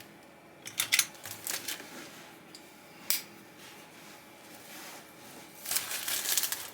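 Small clicks and taps of tools and parts being handled on a workbench. Near the end comes a crackly rustle of a plastic gasket packet being slit open with a razor blade.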